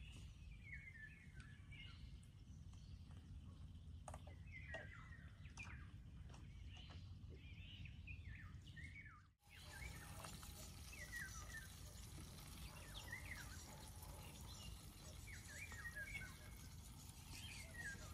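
Faint chirping of small songbirds: short, falling chirps repeated every second or so over a low, steady background rumble. The sound drops out briefly about halfway through.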